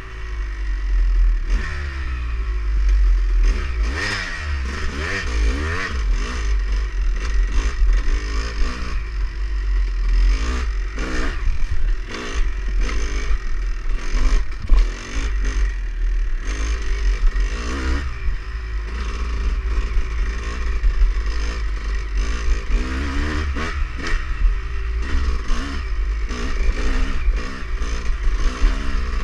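Dirt bike engine revving up and down repeatedly as the bike is ridden over a rough trail, with frequent rattles and knocks from the bike over bumps and a strong low rumble of wind on the microphone.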